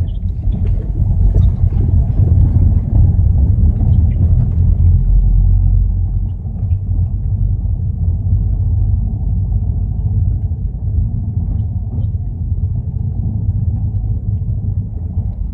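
A car's front KSport Street coilover suspension on the move: a low, steady rumble, louder for the first six seconds or so, with faint short squeaks from the coilovers.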